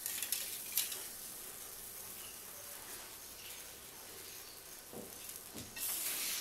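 Quiet, steady sizzling hiss of a filled chapati cooking on a hot iron tawa over a gas flame, with a few faint clicks. Near the end a louder scrape as a metal spatula slides under the chapati on the tawa.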